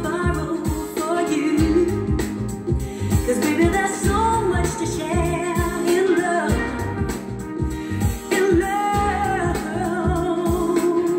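A song with a singing voice over a steady beat, played back through a hi-fi system with a TEAC A-1D integrated amplifier driving the loudspeakers, and picked up in the listening room.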